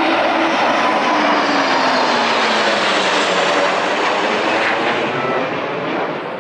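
Military aircraft flying over: a loud, steady engine roar with a tone that slides slowly down in pitch as it passes, easing off near the end.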